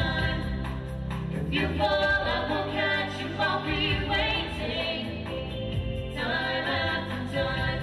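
Several singers performing a pop song over musical accompaniment with a steady beat, amplified through stage speakers.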